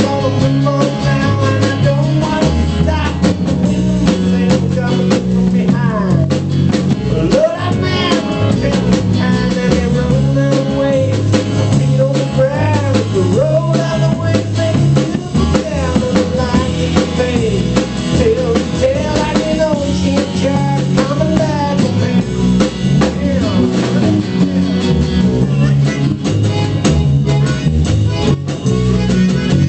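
Music with drums and a stepping bass line under a wavering lead melody.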